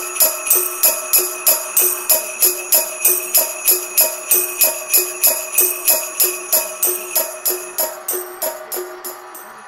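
Jingle bells ringing in a steady beat, about three strokes a second, over a few held tones; the beat fades near the end.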